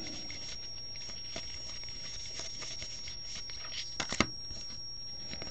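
2015 Bowman Draft baseball cards being flipped through by hand, the cards sliding and rustling against each other with faint ticks, and two sharper clicks about four seconds in.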